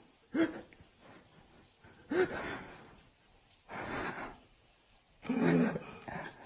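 Short bursts of people gasping, snorting and breathing, about four in all, some with a brief rise and fall in pitch, one breathier than the rest.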